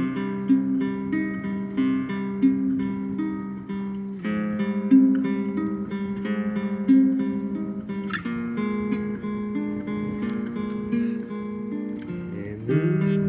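Acoustic guitar playing an instrumental passage, plucked notes repeating over low bass notes with a chord change about every four seconds. A note slides upward near the end.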